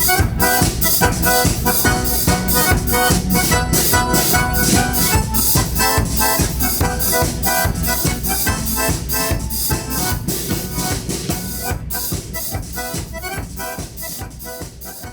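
Live band playing an instrumental: accordion over bass and a steady drum beat. The music fades gradually over the last few seconds.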